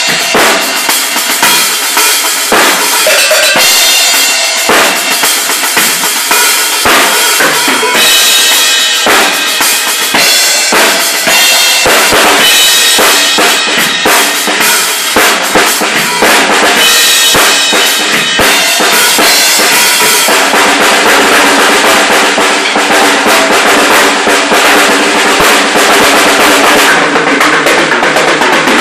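DW drum kit with Zildjian cymbals played solo: bass drum, snare and cymbal strikes in quick fills. From about twenty seconds in the playing turns into a dense, continuous run.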